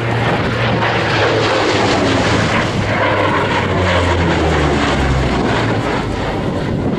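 P-38 Lightning's twin Allison V-12 piston engines, loud, in a propeller flyby; the engine note falls in pitch from about three seconds in as the fighter passes.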